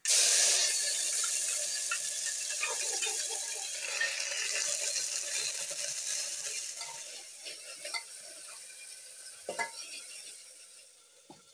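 Hot oil in a cooking pot sizzling loudly the moment something is tipped in from a small cup, the sizzle fading gradually over about ten seconds. A few light clinks of a spoon stirring against the pot come near the end.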